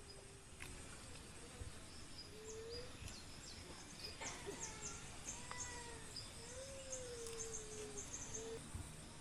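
Quiet outdoor ambience: quick high chirps repeating in runs, and several drawn-out, wavering low calls from an animal, with a couple of faint clicks.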